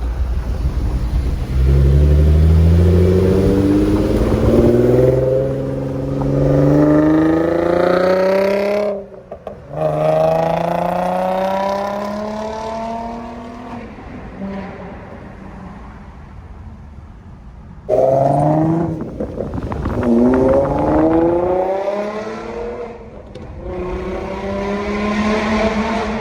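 Infiniti G35's V6 through a full Motordyne exhaust, accelerating hard under full throttle: the engine note climbs through the revs, dips briefly at a gear shift about nine seconds in, then climbs again before easing off. A second hard pull starts about eighteen seconds in, with another shift near twenty-three seconds.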